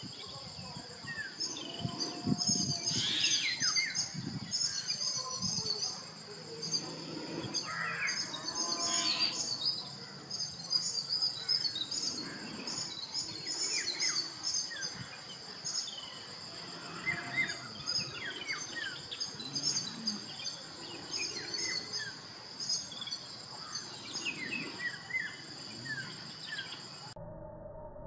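Brahminy myna (brahminy starling) singing: a long, varied run of short whistles, chirps and falling notes, over a steady high-pitched drone. The sound cuts off abruptly about a second before the end.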